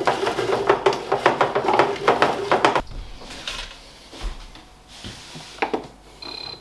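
Dishes, pots and cutlery clattering for the first few seconds as food is handled and plated, then a few scattered knocks. Near the end an electronic kitchen appliance starts beeping with a high tone.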